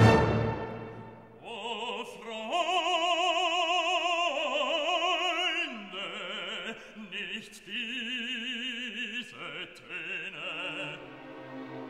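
Opera singing as background music: a solo voice holding notes with wide vibrato, coming in about a second and a half in after an orchestral chord dies away.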